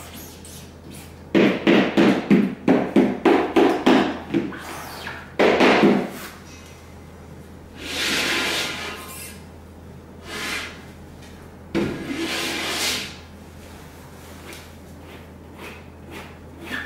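Hand-held squeegee dragged through wet acrylic paint on a silkscreen. First comes a quick run of about ten short strokes, roughly three a second, then a few single, longer hissing scrapes.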